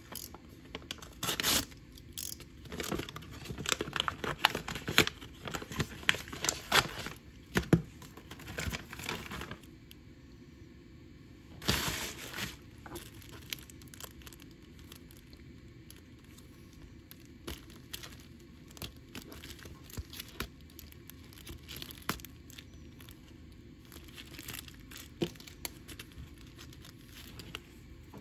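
Kraft paper mailer being torn open and the plastic sleeves of nail sticker sheets and tissue paper handled: tearing and crinkling packaging in quick bursts, busiest in the first ten seconds, with one louder burst of tearing about twelve seconds in and sparser, quieter rustling after.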